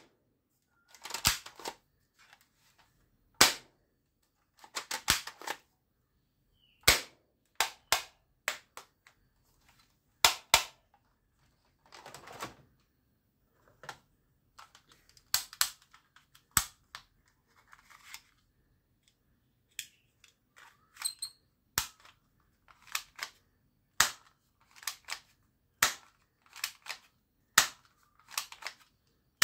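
Hard plastic toy guns clacking and clicking as they are picked up, handled and set down in a pile: irregular sharp knocks, some single and some in quick clusters, roughly one every second or two.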